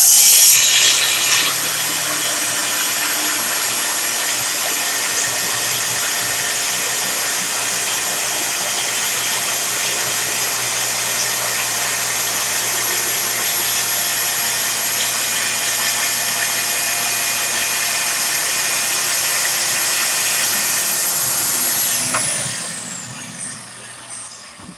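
DeWalt track saw cutting along its guide rail, trimming a taper off a door's edge, with a Festool dust extractor drawing through the hose. A steady high whine holds for about twenty seconds, then winds down and fades near the end.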